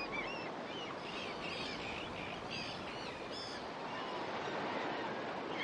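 Small birds chirping repeatedly over a steady, even rushing background noise.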